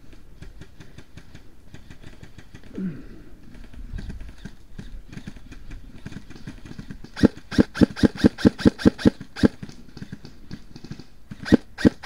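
Airsoft rifle firing close by: two strings of rapid sharp shots at about five to six a second, the first starting about seven seconds in and lasting a couple of seconds, the second starting near the end.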